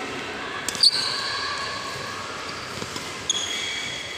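Badminton rally in a large echoing sports hall: a sharp racket-on-shuttlecock hit about a second in and a lighter one near the end, with high shoe squeaks on the court mat after each.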